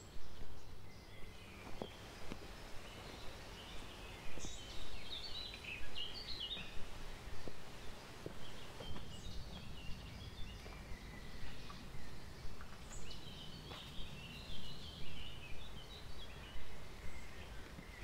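Songbirds singing in woodland in short, repeated phrases, over a steady low outdoor rumble. A person's footsteps thud regularly throughout.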